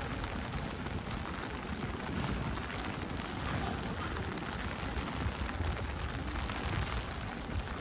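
Heavy rain falling steadily, with an uneven low rumble underneath.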